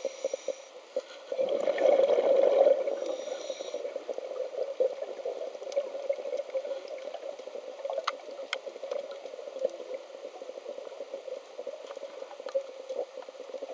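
Underwater sound heard through a camera's waterproof housing: a steady muffled crackle and fizz of water, with scattered small clicks. About a second and a half in comes a louder rush of bubbles lasting a second or so.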